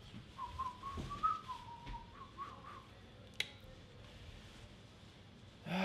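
A man whistling a short wavering tune for about two seconds, followed about a second later by a single sharp click.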